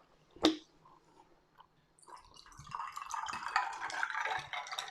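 A short sharp click about half a second in, then from about two seconds a steady crackling fizz of carbonated sparkling water, full of tiny pops.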